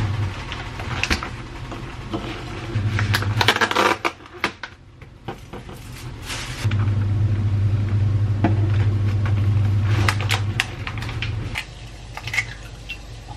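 Kitchen handling sounds: a plastic measuring cup set down on a glass-top induction cooktop and the plastic lid of an egg carton clicking and crackling, with a low steady hum through the middle for about four seconds. Near the end an egg is tapped and cracked over a ceramic bowl.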